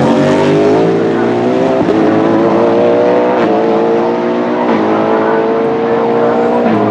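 Hypercar prototype race car's engine accelerating hard through the gears. The pitch climbs and drops sharply at each upshift, four times.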